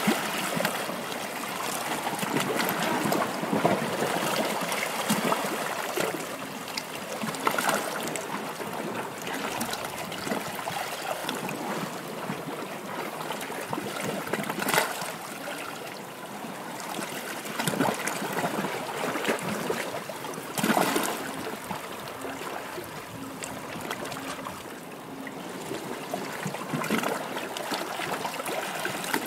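Steady running, trickling water, with a few brief louder splashy surges.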